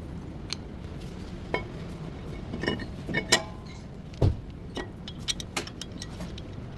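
Metal tools and brake parts clinking and knocking during rear brake work, a scattering of short metallic clicks, some ringing briefly, and one heavier knock about four seconds in, over a steady low hum.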